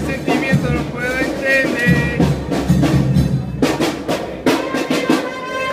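A football supporters' band playing live, with brass carrying a wavering melody over a steady beat on bass and snare drums.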